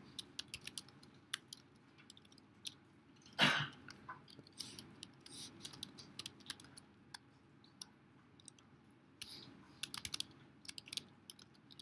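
Computer keyboard typing in slow, irregular keystrokes, with a quicker run of keys near the end. One louder short rush of noise comes about three and a half seconds in.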